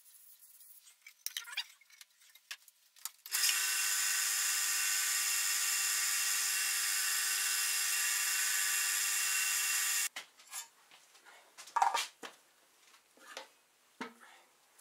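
An electric power tool motor runs at a steady whine for about seven seconds, starting and stopping abruptly. Scattered knocks and clicks of wood being handled come before and after it.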